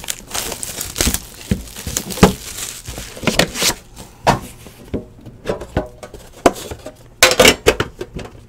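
Hands opening a trading-card box: cardboard scraping and sliding, with many sharp taps and clacks as the case inside is handled and its card holder is slid out.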